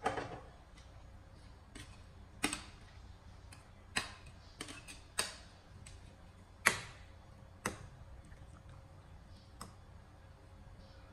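Metal ladle knocking against the side of a stainless steel cooking pot while stirring, about eight sharp clinks at uneven intervals, the loudest about two-thirds of the way through, over a low steady hum.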